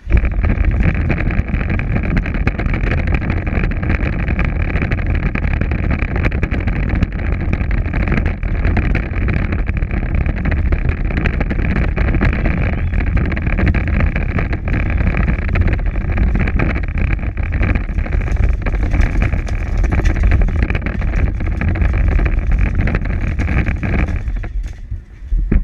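Power Wheels ride-on toy car driving over pavement: its electric drive motors whir steadily and its plastic wheels rumble on the asphalt. The sound starts suddenly and stops near the end as the car comes to a halt.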